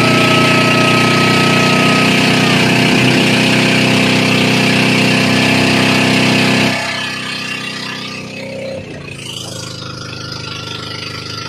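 Motorized outrigger boat's engine running loud and steady, becoming much quieter abruptly about two-thirds of the way through. A held high tone sounds over it for the first couple of seconds.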